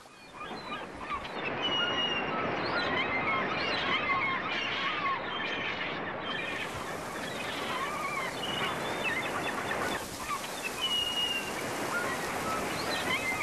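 A flock of gulls calling, many short overlapping cries, over a steady rush of surf.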